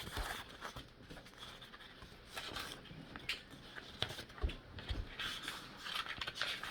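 Faint handling noise: light rustling and scattered small taps and clicks.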